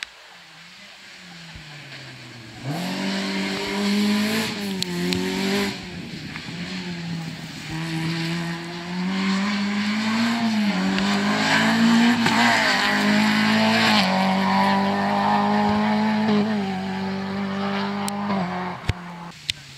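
Rally car engine revving hard, its note rising and dropping repeatedly with gear changes and lifts off the throttle. It is fainter for the first few seconds, then loud and close.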